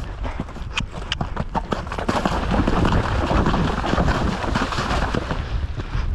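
Horse's hoofbeats on grass, then from about two seconds in a dense, continuous splashing as the horse goes through a shallow cross-country water jump; the splashing stops near the end as it comes out onto grass.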